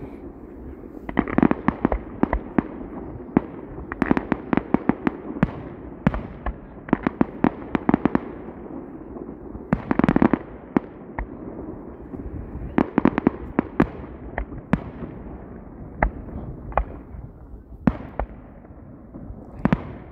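Fireworks display: aerial shells bursting in rapid series of sharp bangs and crackles, coming in clusters every two or three seconds.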